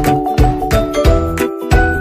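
Upbeat background music: a bright mallet-percussion melody over a steady beat.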